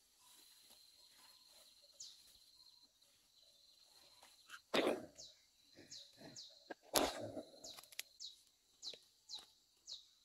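Branches and leaves crash and rustle loudly twice as someone climbs down out of a tree and pushes through undergrowth, with smaller crackles of twigs and leaves between. A bird repeats a short falling chirp about twice a second, and a thin steady high tone is heard in the first few seconds.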